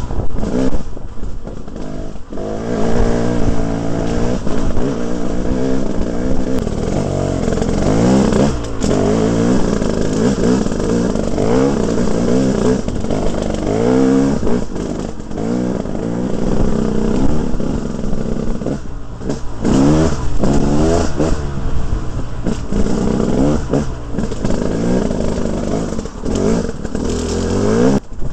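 2011 KTM 300 single-cylinder two-stroke dirt bike engine revving up and down again and again, its pitch rising and falling in repeated sweeps.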